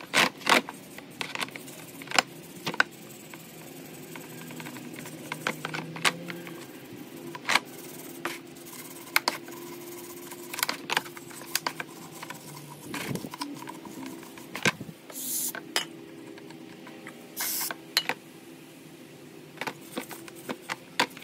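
A brass wire brush scrubbing a greasy aluminium Ford 5.0 throttle body over a plastic parts-washer tub, with irregular clicks and knocks as the part and brush shift and tap. There are two short hisses, the first about fifteen seconds in and the second a couple of seconds later.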